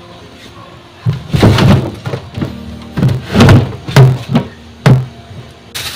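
Plastic refrigerator crisper drawer and bagged vegetables being handled: a run of loud knocks and bumps, starting about a second in, with some five thunks over the next four seconds.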